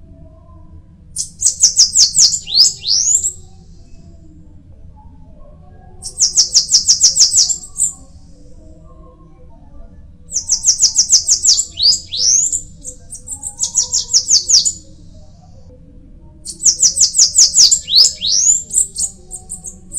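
Bananaquit singing: five loud songs a couple of seconds apart, each a fast run of very high, thin notes ending in squeaky up-and-down twitters.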